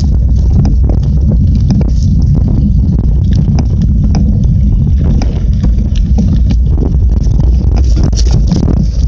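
Mountain bike rolling over a rough dirt and leaf-covered forest trail: a loud, constant low rumble with rapid, irregular clicks and knocks as the tyres hit bumps and the bike rattles.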